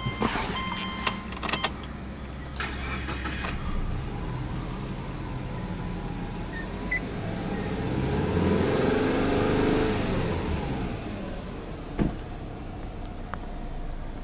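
A Subaru Legacy B4 2.0 GT's turbocharged 2.0-litre flat-four engine is cranked and catches in the first few seconds, then runs at a cold fast idle of around 1,800 rpm. About halfway through, the engine speed swells up and settles back down once, and there is a single click near the end.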